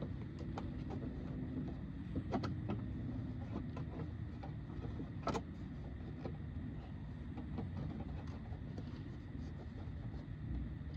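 Light clicks and taps of plastic car interior trim being handled and pulled, with one sharper click about five seconds in, over a steady low rumble.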